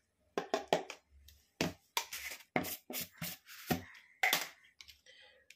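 Kitchen utensils and spice containers being handled while spice powder is spooned onto chicken: about a dozen irregular sharp clicks and knocks.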